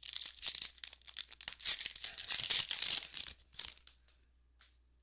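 A trading-card pack wrapper being torn open and crinkled by hand: a dense crackling rustle that stops about three and a half seconds in, followed by a few faint ticks as the cards are handled.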